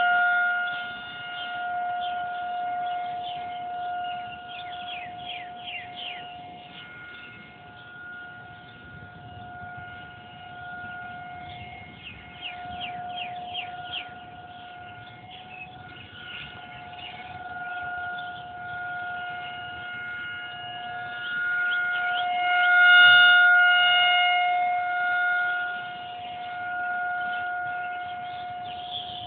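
Outdoor storm warning siren sounding one steady tone, its loudness swelling and fading over and over, loudest about three quarters of the way through.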